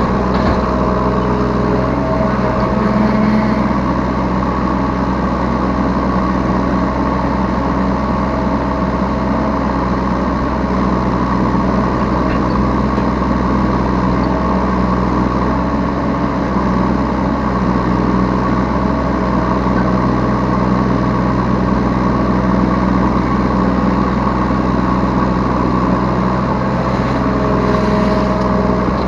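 Diesel engine of a Yanmar B3Σ 3-ton mini excavator running steadily at working speed, heard from the operator's seat.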